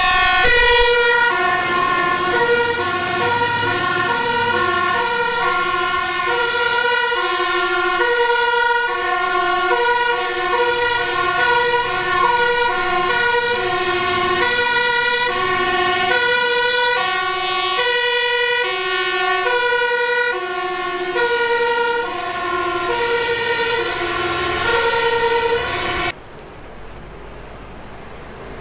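Fire engine's two-tone siren sounding, switching between a high and a low note about every half second. It cuts off suddenly near the end, leaving a quieter background.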